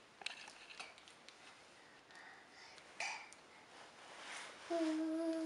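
Faint scattered light taps and clicks of a toddler's hands on a wooden chair arm. Near the end a voice holds one steady note for under a second.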